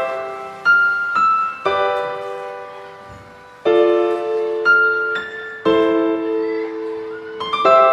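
Slow, gentle solo piano music: chords struck about once a second, each ringing and fading, with a longer held fade partway through.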